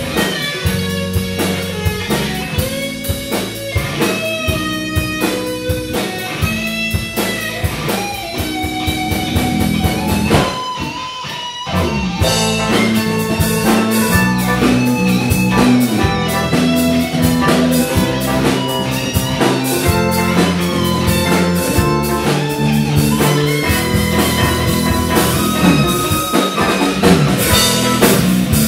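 Live rock band playing: electric guitar, bass guitar and drum kit together. About eleven seconds in, the band briefly thins out, then comes back in fuller and louder.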